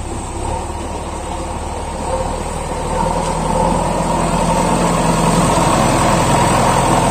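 JCB backhoe loader's diesel engine running steadily as it carries a loaded front bucket, growing louder about three seconds in.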